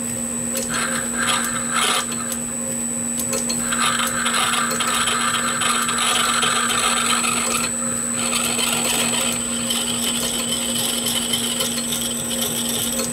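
Small vintage lathe running with its steady motor hum and whine while a D-bit bores a hard bronze bar. A higher-pitched cutting noise rises about four seconds in and fades near ten seconds.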